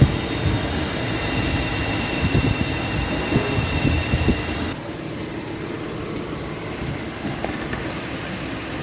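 Nissan VQ40DE 4.0 L V6 engine running steadily, with thin, steady high-pitched whining tones over the engine noise. About five seconds in the sound cuts to a quieter steady run with a fainter whine. This is the buzzing whine that was traced to the bypass valve of an aftermarket oil filter vibrating.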